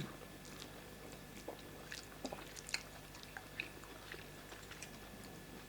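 Close-up eating sounds: scattered soft wet clicks and smacks of chewing and lips as pounded yam fufu and vegetable soup are eaten, the loudest a little before the midpoint.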